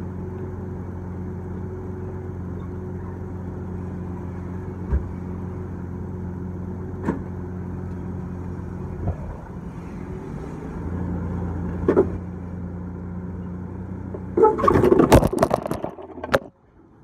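Ford Ranger pickup engine idling steadily, with a few light clicks; the engine gets a little louder about two-thirds of the way through. Near the end, loud rustling and knocking from the microphone being handled, which cuts off suddenly.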